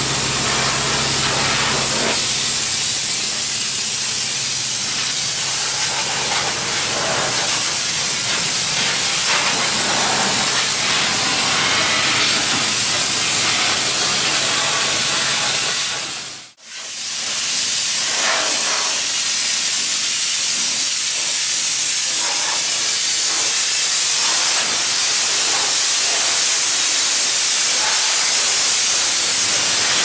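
Compressed air blowing from an air-hose nozzle, a loud steady hiss, as it blasts chaff and seed out of a combine harvester's grain auger troughs, concave and threshing cylinder during a cleanout. The hiss breaks off briefly a little past halfway.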